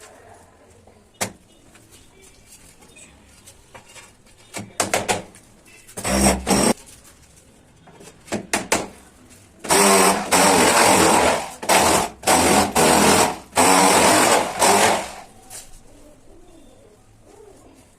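Ceramic wall-tiling work: a sharp knock about a second in, then several short bursts of harsh noise and a longer stretch of it, broken by brief gaps, over the second half.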